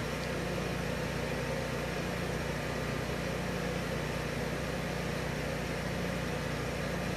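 17 kW Honeywell standby generator's engine running steadily at a constant speed, a low even hum, during its unloaded exercise run.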